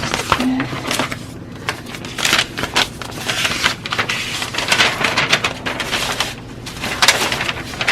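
Paper sewing-pattern pieces being handled, rustling and crinkling in irregular swells with a few sharp crackles.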